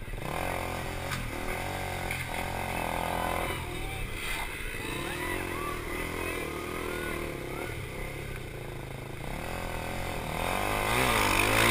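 KTM Duke 390's single-cylinder engine on the rider's own bike, revving up and down through tight corners. Near the end it is opened up hard, rising in pitch and getting louder.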